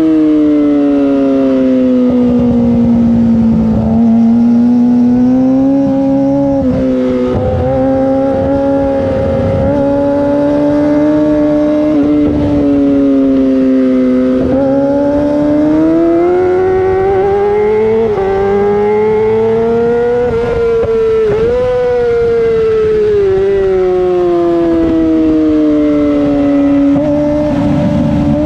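Yamaha YZF-R6's inline-four engine at high revs through a LeoVince full-system exhaust, its pitch sweeping down and up as the bike is ridden hard. Several brief breaks in the note, where quickshifted gear changes go through.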